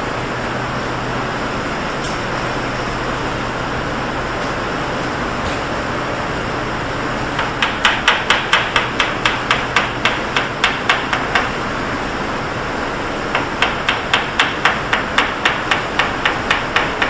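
Kitchen knife chopping mushrooms on a plastic cutting board: quick knocks about four or five a second, in two runs, the first starting about halfway through and the second after a short pause. A steady background hiss runs under them.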